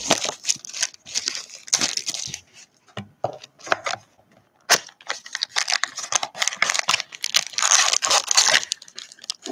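Crinkling and rustling of thin plastic as trading cards are handled and worked into a clear card sleeve, in irregular bursts, with one sharp tap about halfway through and the densest crinkling near the end.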